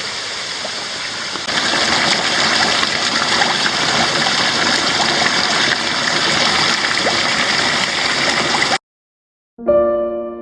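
Waterfall and creek water gurgling and splashing steadily. It gets louder about a second and a half in, then cuts off suddenly near the end, and a few piano notes begin.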